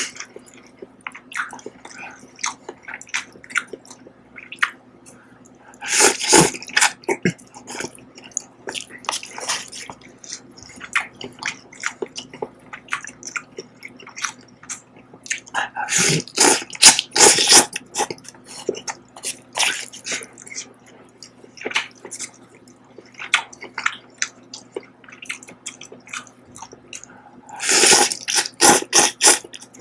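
Close-up eating sounds of spicy instant cup ramen: a person slurping noodles in three louder bouts spread through, with smaller wet mouth clicks and chewing in between.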